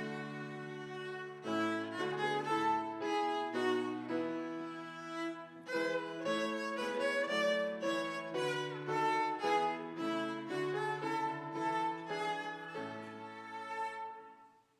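Instrumental music led by a violin over lower sustained notes, a steady succession of melody notes; it dies away just before the end.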